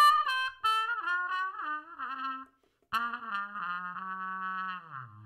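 Brass outro music: a phrase of notes stepping down in pitch, a short pause, then a second phrase that settles on a long held low note and drops lower near the end.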